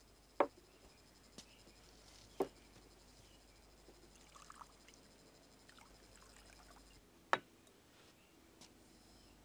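Small porcelain wine cups clinking against the table and each other: three sharp clinks a few seconds apart, the third the loudest, with faint pouring of wine between them.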